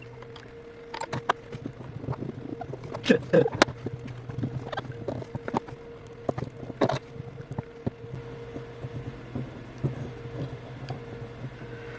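Irregular small clicks and scraping taps of a hand tool working at adhesive residue in an opened iPhone 8, over a steady low hum.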